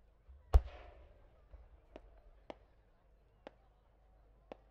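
Fireworks going off: one loud bang about half a second in, with a low rumble that fades away, then four fainter sharp cracks about a second apart.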